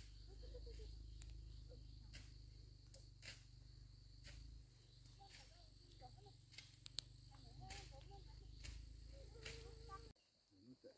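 Faint steady high insect buzz, like crickets, with scattered soft clicks over a low rumble that cuts off abruptly about ten seconds in.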